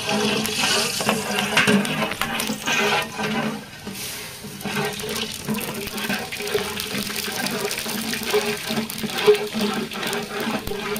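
Dried red chillies and phutana (Odia five-spice tempering) sizzling and crackling in hot mustard oil, with a sudden burst of sizzle as they go into the oil and steady popping after.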